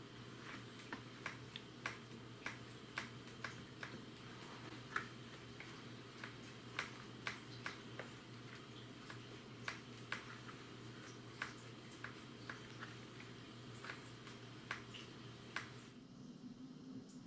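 Faint, sharp clicks about twice a second, unevenly spaced, from bleeding a dirt bike's front brake at the caliper's bleeder valve and the handlebar brake lever. They stop near the end. A faint steady low hum runs underneath.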